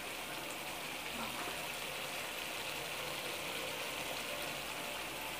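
Pork and chilies in coconut milk simmering in a pan, a steady bubbling hiss.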